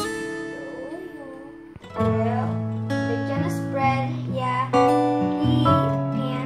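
Background music led by strummed acoustic guitar, the chords changing about once a second.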